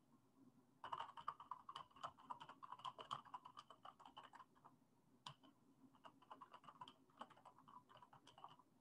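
Faint typing on a computer keyboard: quick, irregular runs of keystrokes, with a short pause about halfway through.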